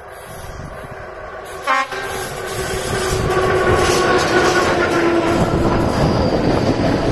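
Electric locomotive approaching on the main line. It sounds one short horn blast about two seconds in, then the noise of the train grows louder as it nears, with a steady hum.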